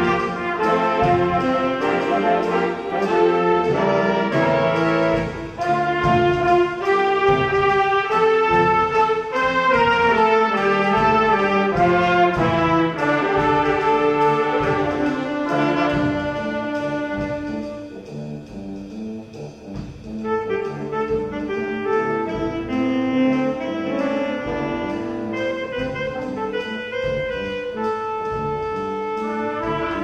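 A school jazz band playing live: saxophones, trumpets and trombones over a drum kit. The band drops to a softer passage about two-thirds of the way through, then comes back in.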